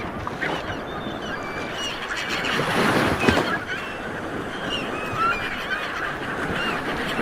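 Sea water washing and surging against a boat, with a swell about three seconds in, under many short, high squeaky chirps scattered throughout.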